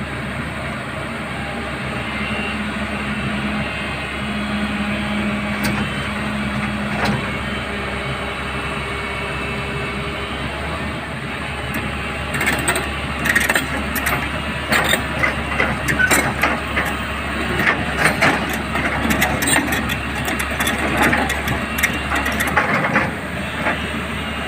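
Excavator's diesel engine running steadily under load. From about halfway in, a dense run of sharp knocks and cracks joins it.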